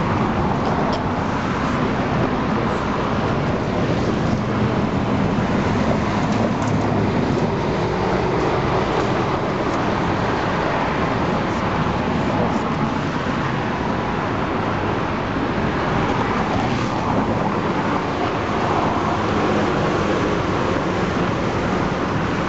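Steady city road traffic noise, a continuous rumble of passing vehicles with a few faint ticks.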